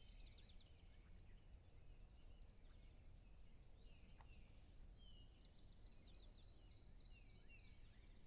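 Faint birdsong: many quick chirps, trills and short whistles from birds, over a low, steady rumble of background noise.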